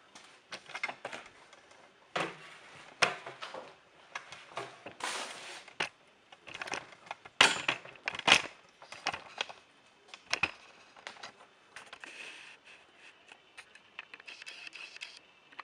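A camera and its stand being picked up, moved and set down, heard close on the camera's own microphone: irregular clicks, knocks and rubbing, with two sharp knocks about halfway through.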